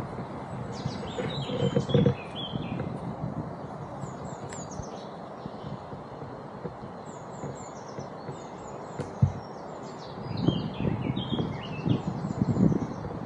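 Small birds chirping and twittering over a steady outdoor hiss, with bursts of low rumble near the start and again in the last few seconds.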